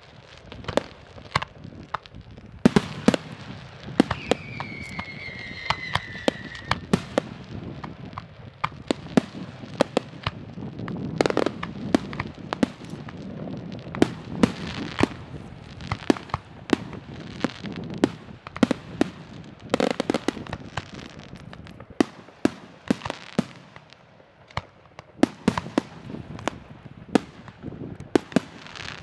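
Fireworks display: many sharp bangs and pops of differing strength at an uneven pace over a low background rumble. A whistle falls in pitch about four seconds in.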